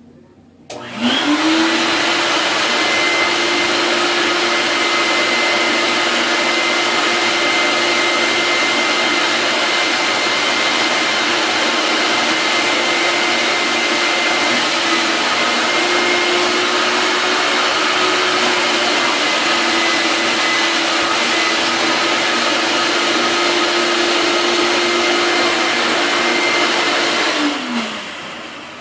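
Shop vacuum switched on about a second in, its motor rising in pitch to a steady whine and running loud while it sucks on a clogged drain, then switched off near the end, winding down in pitch.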